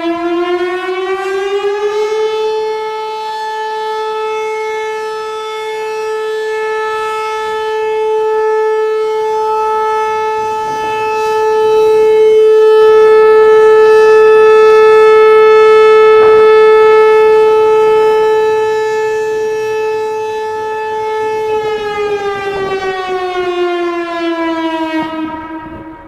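Whelen WPS-4004 electronic outdoor warning siren sounding its steady Alert tone. The pitch climbs for about two seconds, holds level and grows louder through the middle, then slides back down a few seconds before the end as the siren winds off.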